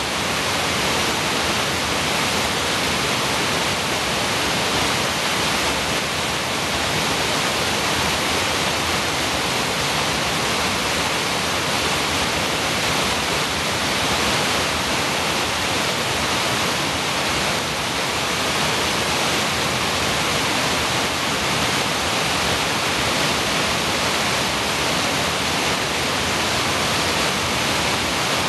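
Creek waterfall pouring over rocks and logs: a steady, loud rush of falling water.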